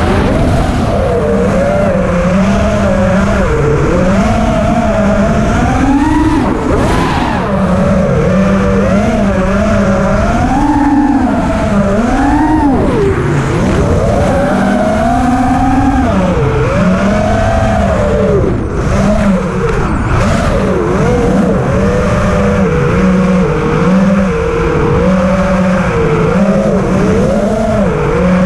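Quadcopter drone's electric motors and propellers whining, the pitch rising and falling constantly with the throttle as it banks and dives, over a low rumble of rushing air.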